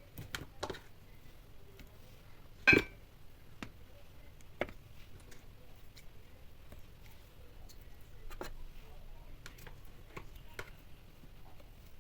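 Raw potato slices being laid by hand into a baking dish: scattered soft taps and clicks, with one louder knock about three seconds in.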